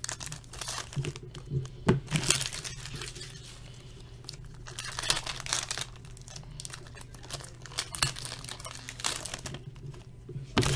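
Foil trading-card packs being torn open and crinkled by hand, in irregular rustles with a few sharp crackles.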